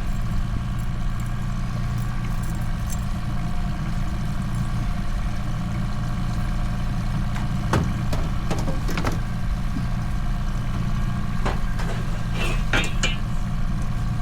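Boat motor running steadily at trolling speed, a low hum with a faint whine, with a few light clicks and knocks from handling gear in the boat, most of them in the second half.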